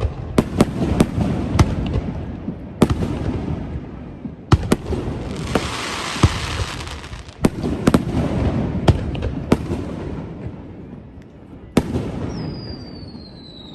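Aerial fireworks bursting in quick succession with sharp, booming bangs, and a stretch of dense crackling about halfway through. Near the end a high whistle glides down in pitch.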